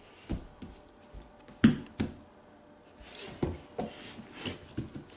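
Scattered thumps and knocks of a child's bare feet and body on a wood-look floor as she runs and crouches, with some rustling near the end.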